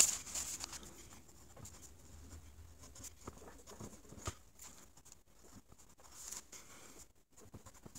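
Mechanical pencil writing on a pad of lined paper: short, irregular scratches and taps of the lead as it forms letters. A louder paper rustle comes right at the start.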